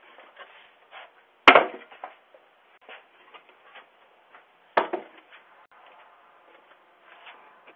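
Two sharp impacts about three seconds apart, the first the louder, with faint scattered clicks and rustling between them.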